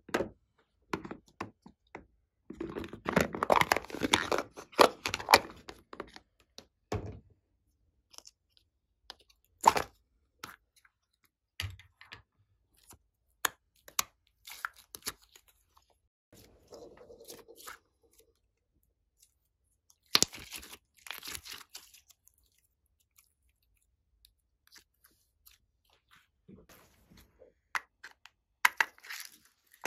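Glossy slime being squished and mixed by hand: scattered sticky clicks and pops, with a dense run of crackling a few seconds in and more bursts of crackling around twenty seconds and near the end.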